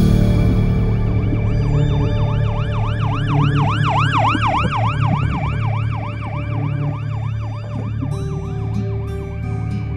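Ambulance siren in a rapid rising-and-falling wail, several cycles a second, growing louder then fading away over sustained background music. Acoustic guitar plucking comes in near the end.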